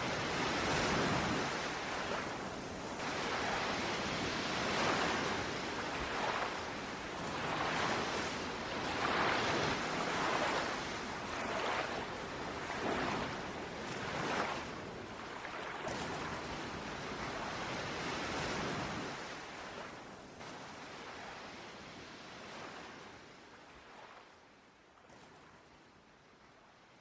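Ocean waves breaking and washing on a shore, in repeated surges a second or few apart, fading out over the last several seconds.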